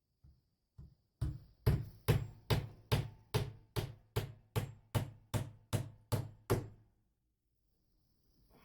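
Hammer blows, struck in a steady rhythm of about two and a half a second. A couple of light taps come first, then about fourteen hard blows, each with a short ring, stopping about seven seconds in.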